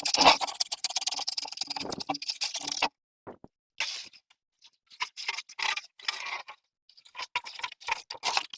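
Scraping and scrubbing noises from cleaning, continuous for about three seconds, then coming in short bursts with quiet gaps between them.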